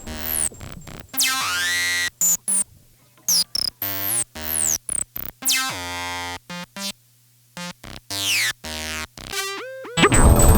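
Electronic music from a hardware analog and FM synthesizer jam: choppy, stuttering synth notes broken by abrupt silent gaps, with high pitch sweeps rising and falling. Near the end a dense, loud noisy wash comes in.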